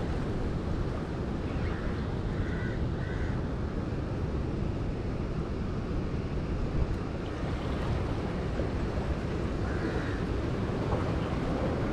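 Steady rush of sea surf around breakwater rocks, mixed with wind rumbling on the microphone.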